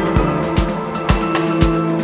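Ambient dub music: a steady kick drum beat about twice a second under held chords.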